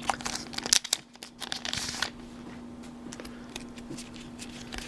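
Foil booster-pack wrapper crinkling as cards are drawn out of the opened pack, in a flurry of rustles over the first two seconds, then a faint steady hum.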